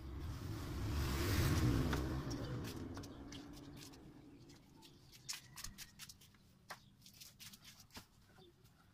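A motor vehicle passing on the road, its rumble swelling to a peak about a second and a half in and fading away over the next few seconds. It is followed by scattered light clicks and knocks.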